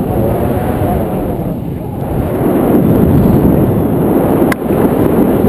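Wind rushing over the camera's microphone during a tandem paragliding flight, a loud steady rumble, with a single sharp click about four and a half seconds in.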